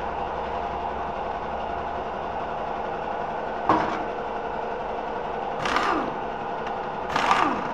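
Corded electric drill with a socket bit run in two short bursts on the motorcycle engine's cover bolts, each winding down in pitch, the first about six seconds in and the second near the end. A single sharp metallic click comes a little before them.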